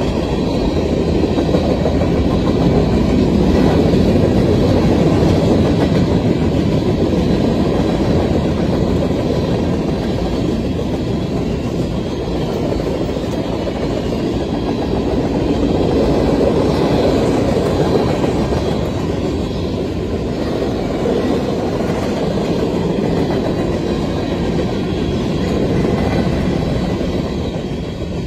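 Freight train cars (autoracks, gondolas and covered hoppers) rolling past: a steady rumble of steel wheels on the rails with clickety-clack, swelling and easing as the cars go by.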